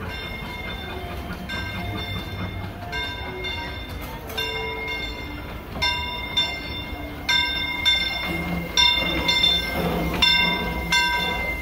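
Steam locomotive Fred Gurley #3, an 1894 Baldwin Forney, ringing its bell as it rolls into the station over the low rumble of the train. The strokes come every second or so and grow louder and closer together from about six seconds in as the engine draws near.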